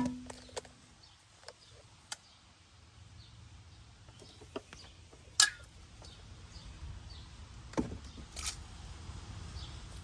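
A few faint, scattered metallic clicks and knocks of tools and sensor parts being handled, over a low steady background hum.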